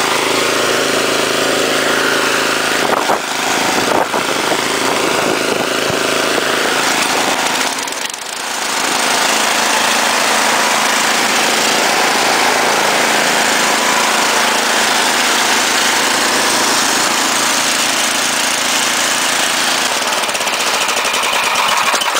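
Tecumseh Snow King snowblower engine running loud and steady, with a brief dip about eight seconds in.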